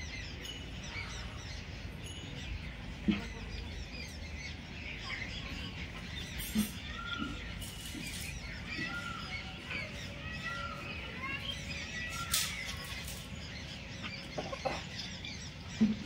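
Many small birds chirping and twittering all around, with a run of short rising-and-falling call notes in the middle. Four short knocks stand out above the birdsong.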